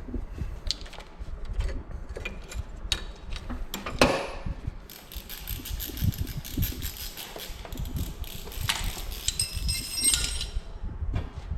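Hand tools clinking and knocking against metal during car repair, with a sharp click about four seconds in and a faint high hiss from about halfway until near the end.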